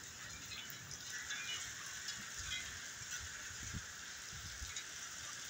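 Heavy rain falling as a steady hiss, with brief low bumps now and then.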